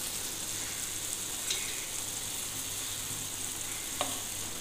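Thin hilsa fish curry boiling hard in a frying pan, a steady bubbling sizzle from the oily broth. A couple of faint ticks come through, one about a second and a half in and one near the end.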